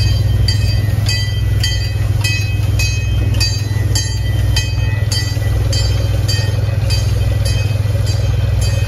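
Locomotive bell on the railroad's 4-6-2 steam locomotive ringing steadily, a little under twice a second, over the low, continuous rumble of the running train.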